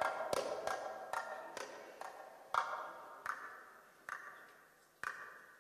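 Darbuka (Egyptian tabla), a metal goblet drum, played solo: strokes at first about three a second, then single ringing strokes spaced out to about a second apart, getting quieter.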